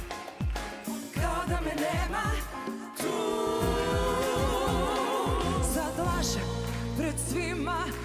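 A singer with vibrato over a band, in Croatian-language pop. A run of low drum hits comes first, then steady held bass notes about six seconds in.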